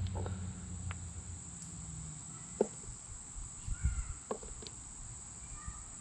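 Steady, high-pitched late-summer insect chorus, with a low hum that fades out about two seconds in. A few light snaps and rustles come from the potted garden plants being handled.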